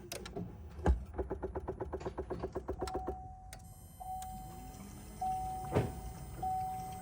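2017 Chevy Bolt brake booster clicking rapidly and evenly, about nine clicks a second for some two seconds: the repetitive clicking fault in the booster. Then the car's warning chime sounds in a repeating tone, with a couple of thumps.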